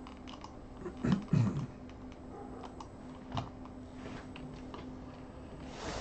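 Computer keyboard keys pressed in scattered clicks while chess moves are stepped through in software, with a couple of louder knocks just after a second in. A faint steady hum runs underneath.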